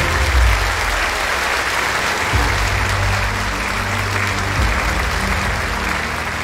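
Large audience applauding, with music playing underneath.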